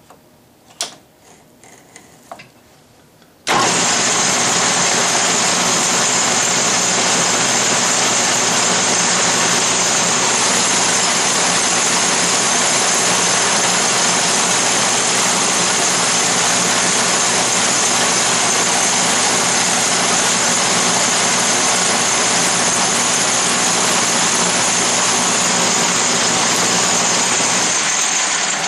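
Atlas Craftsman lathe switched on a few seconds in after some light clicks, its motor and drive running steadily with a high whine as a turning pass is taken on the bar. Near the end it is switched off and winds down.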